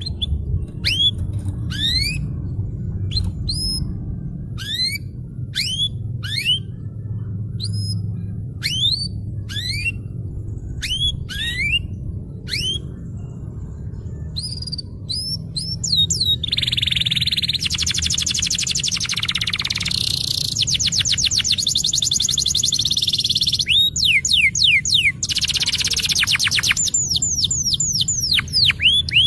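Domestic canary singing: a run of separate quick rising chirps, then, a little past halfway, fast rolling trills that are louder.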